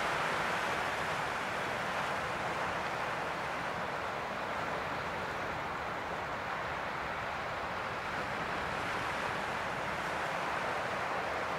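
Sea surf washing steadily over rocks, an even, unbroken wash of water.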